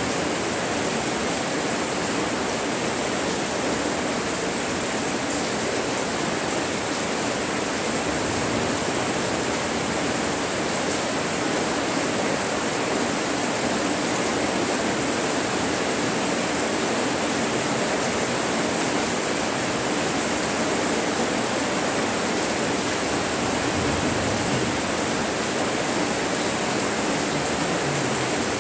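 Monsoon rain falling steadily: an even, unbroken rushing hiss with no thunder.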